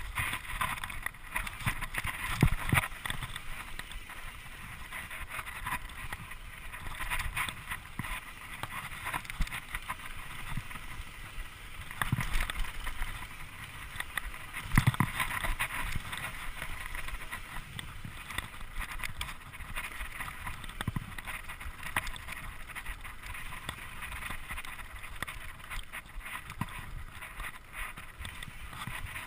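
Mountain bike ridden fast over a dirt singletrack: continuous rattle of tyres and bike over the rough ground, with heavier knocks from bumps, the loudest about two and a half seconds in and about fifteen seconds in.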